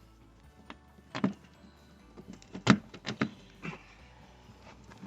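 Plastic push-pin fasteners of a Jeep Wrangler fender snapping as the fender is pulled off the body: several sharp cracks, three of them close together near the middle. The pins are breaking off, which sounds nasty but is normal for this removal.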